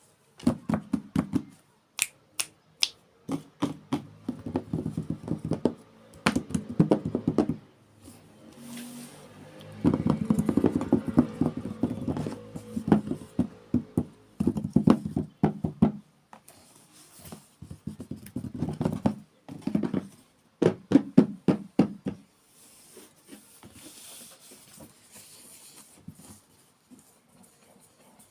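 Hands unboxing miniature toys, close-miked: irregular sharp clicks, taps and plastic packaging rustle, in clusters with denser stretches of handling, softer near the end.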